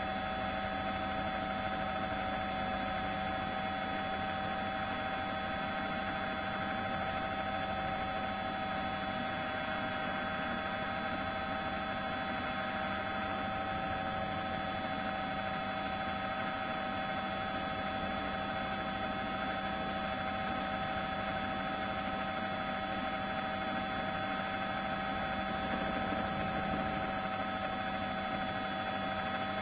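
A steady, unchanging hum and hiss with several constant whining tones layered in it.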